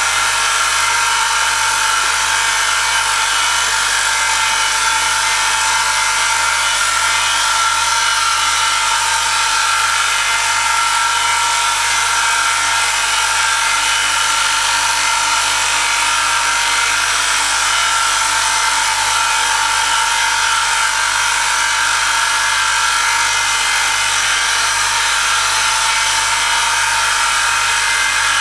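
Electric motor of an oil friction test rig spinning a steel roller against a block pressed down by a lever arm loaded with an extra 1 kg, the contact lubricated with 10W-40 engine oil. It gives a steady whine made of several held tones over a grinding hiss, unchanging throughout.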